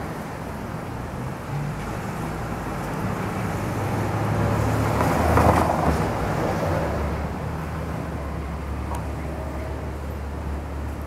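Street traffic: a passing vehicle's engine and tyres swell to a peak about halfway through and then fade, over a steady low engine hum from nearby vehicles.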